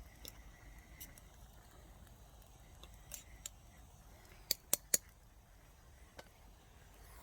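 A few sharp, short clicks or snaps over a faint steady background, the loudest three coming in quick succession about four and a half to five seconds in.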